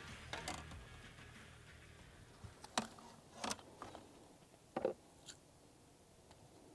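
A handful of faint, sharp clicks and knocks as a landing net and a just-caught smallmouth bass are handled on a fishing boat's deck, the loudest about three and five seconds in.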